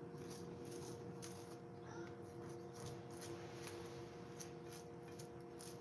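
Cooked spaghetti squash being scraped and pulled into strands out of its shell: quiet, irregular scratchy ticks over a faint steady hum.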